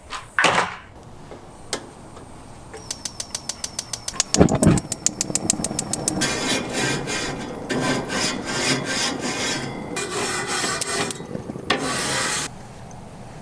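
Harsh back-and-forth scraping on a grill for several seconds, such as a grate being brushed. Before it comes a quick run of clicks and one low thump.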